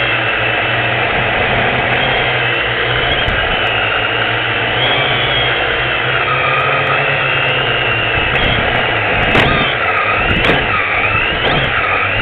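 Quadcopter drone's motors and propellers buzzing steadily, their pitch wavering, as it descends on automatic landing. A few sharp knocks come in the last few seconds as it nears the ground.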